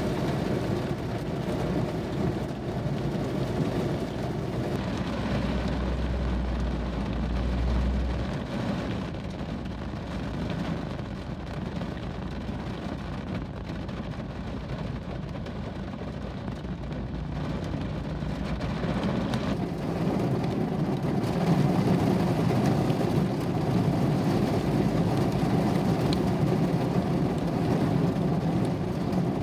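Heavy rain falling on a car, heard from inside the cabin: a steady low rushing that grows louder about two-thirds of the way through.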